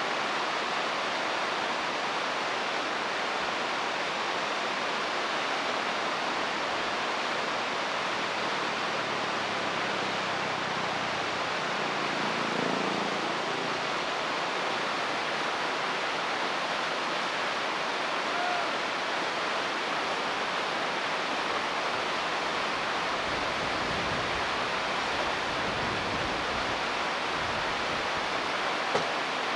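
Steady rush of flowing river water, an even hiss that holds without a break.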